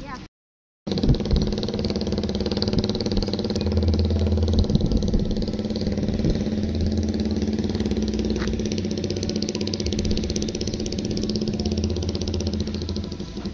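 A motor vehicle engine idling steadily, with a steady hum and a fast, even pulsing. It starts right after a half-second gap of silence at a cut.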